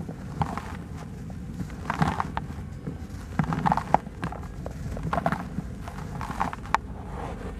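Dry red dirt blocks crushed and crumbled by hand, giving a crunchy crumble about every second and a half, with loose soil sifting down in between.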